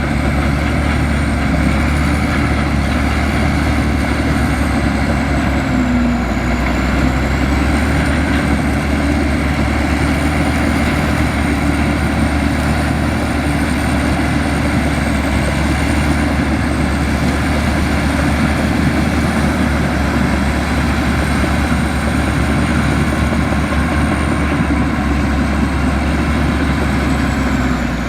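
Komatsu bulldozer's diesel engine running steadily with a heavy low rumble, a thin high whine wavering slowly in pitch above it.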